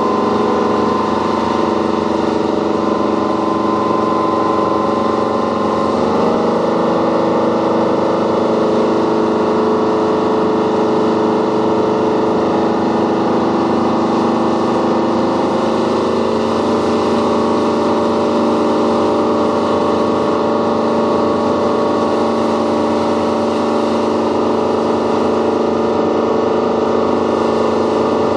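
Motorboat engine running steadily under way, over the rush of water along the hull. Its pitch shifts slightly about six seconds in.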